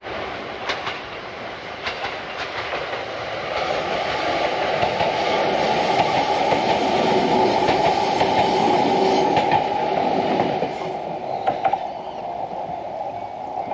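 Electric passenger train of the Fujikyu line passing, its wheels clacking over the rail joints. The sound builds over the first few seconds, is loudest midway, and falls away after about eleven seconds.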